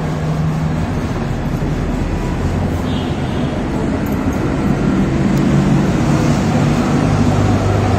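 Steady low hum and rumble of road traffic, growing a little louder in the second half.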